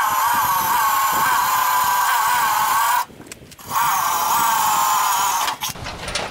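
Cordless drill running in two spells, about three seconds and then about two, a steady high whine with a short break between, as a hole is drilled in the snowblower chute.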